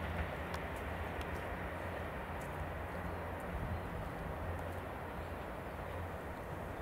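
Diesel engines of a ten-car JR Central Series 85 express train running as the train draws away, a steady low drone.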